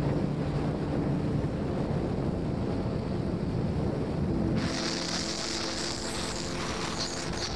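Wind buffeting the microphone on a moving vehicle, with steady engine and road noise beneath. About halfway through, a high, steady shrill sound joins in.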